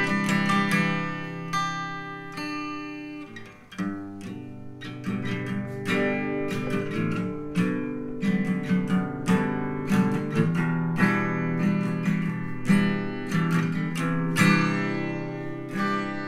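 Acoustic guitar recording, picked and strummed, played back through a homemade four-way speaker whose drivers sit in PVC tubes pointing in four directions, heard in the room around it. The playing dips briefly about three and a half seconds in, then carries on.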